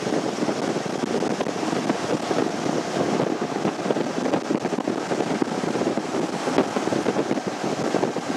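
Typhoon wind buffeting the microphone in a steady, gusting rumble, over heavy storm surf.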